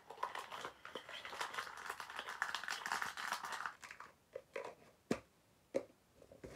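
Jewellery packaging crinkling and rustling as it is handled, a dense crackle for the first three seconds or so. A few separate sharp knocks follow in the second half.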